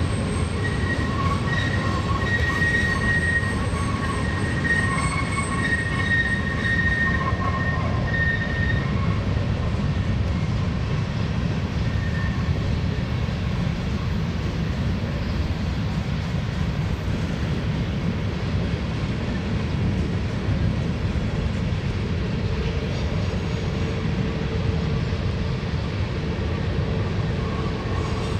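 Loaded freight hopper train rolling by with a steady, heavy low rumble. Intermittent high squealing tones from the wheels come through during roughly the first nine seconds, and a faint steady hum joins near the end.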